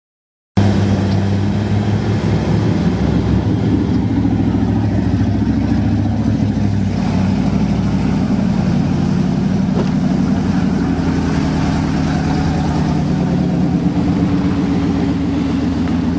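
Pickup truck engine running steadily under load as a swamped truck is pulled out of the water, its pitch creeping up a little over the span. The sound cuts out for about half a second at the start.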